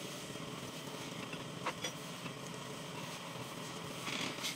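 Drill press running steadily as its twist bit cuts through a thick steel plate, with two sharp metallic clicks a little under two seconds in and a brief scraping rasp near the end.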